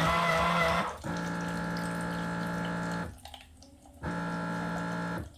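Baby Brezza formula machine's pump and motor humming in steady spells while it dispenses water for a bottle. The first spell stops about a second in, the next runs about two seconds, and a third starts about four seconds in and cuts off just before the end.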